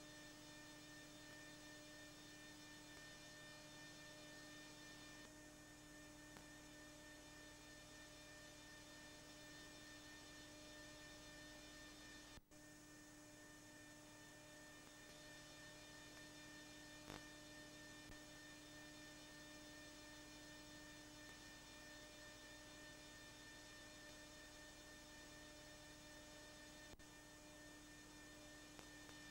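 Near silence: a faint, steady electrical hum with a brief dropout about halfway through.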